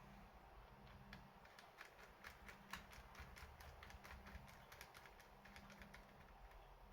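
Typing on a keyboard: a run of faint, irregular key clicks lasting about five seconds.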